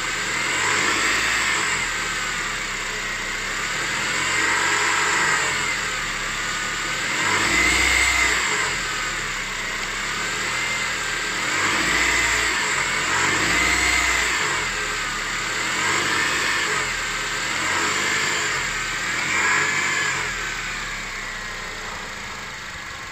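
Honda K20A4 2.0-litre four-cylinder engine of a 2006 CR-V being revved repeatedly, about seven times, its pitch rising and falling every two to three seconds before easing back toward idle near the end.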